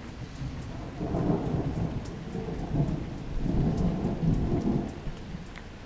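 Thunder rumbling in two long, deep swells that build about a second in and fade near the end, over steady rain.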